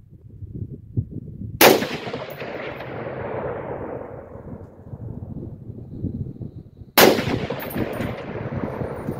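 Two rifle shots from a .308 Palmetto AR-10, about five seconds apart, each followed by a long fading echo.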